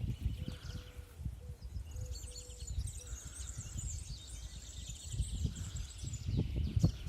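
Small birds chirping and trilling in quick, high runs, over a low irregular rumble of wind or handling noise on the microphone.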